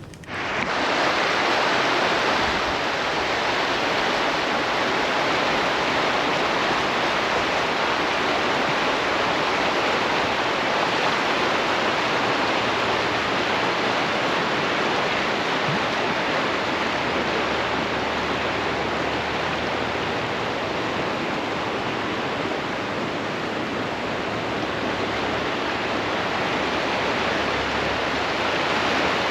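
Steady rushing of water, an even roar with no breaks.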